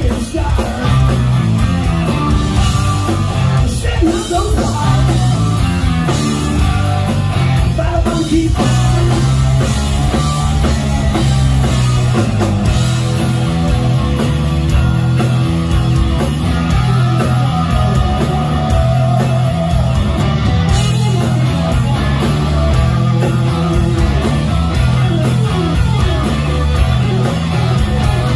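Live hard rock band playing loudly: distorted electric guitars, bass and a drum kit keeping a steady beat.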